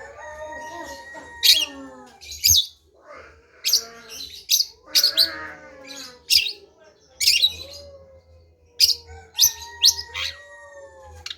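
Long-tailed shrike (centet) singing: sharp high chips repeated at irregular intervals, mixed with lower, drawn-out warbling notes.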